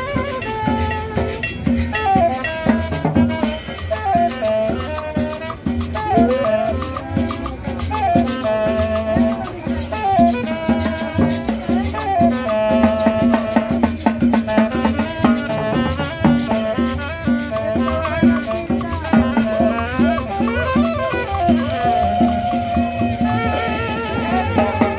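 Upbeat Latin dance music with a steady, dense percussion beat and a melody over a steady bass.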